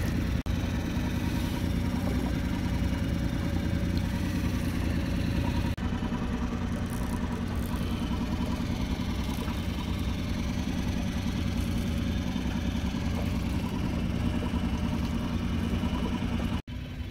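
Small outboard motor running steadily at low trolling speed, pushing the boat.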